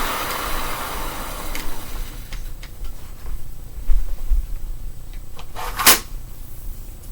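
1997 Hoover Sprint vacuum cleaner's motor winding down after being switched off, its noise fading over the first two seconds. Then scattered clicks and knocks from handling the machine, with one louder clunk about six seconds in.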